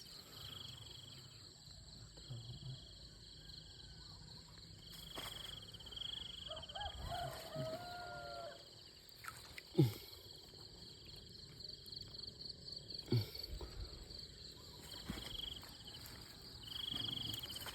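Insects calling in repeated short trills over a steady high-pitched whine, with a brief warbling call midway. Two sharp knocks, about ten and thirteen seconds in, are the loudest sounds.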